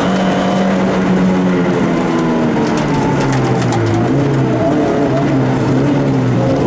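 Peugeot 106 rally car's engine heard from inside the cabin, held at high revs, then falling in pitch about two seconds in and running lower for the rest as revs come down.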